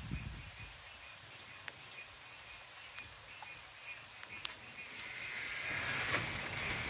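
Frogs and insects calling in a steady night chorus during a thunderstorm, with a rushing noise building over the last two seconds.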